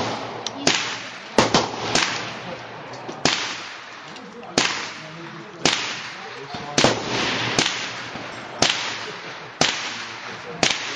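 Rifle shots at a firing range: about a dozen sharp reports at irregular intervals, roughly one a second, each trailing off in an echo.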